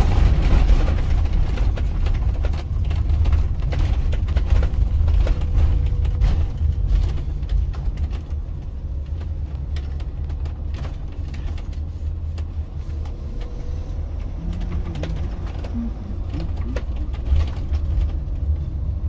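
Motorhome driving on the road: a steady low rumble of engine and tyres.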